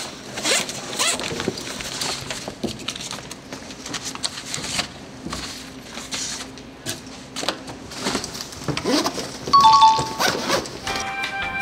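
Backpack being handled: a zipper, fabric rustling and paper shuffling in a string of small knocks and scrapes. About nine and a half seconds in, a two-note falling ding-dong chime sounds, like a 'correct answer' effect.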